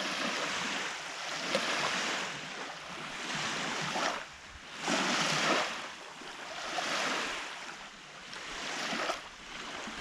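Small wind-driven waves washing onto a sandy lake shore: a hiss of surf that swells and fades every second or two.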